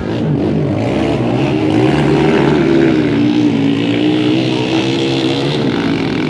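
Dirt bike engines racing past, revving up and down with the pitch rising and falling.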